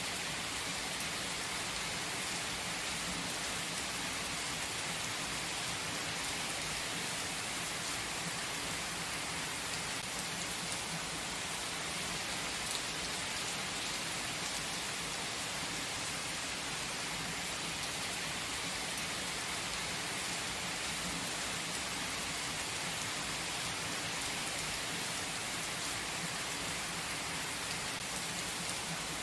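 Steady rain falling on trees: an even, unbroken hiss.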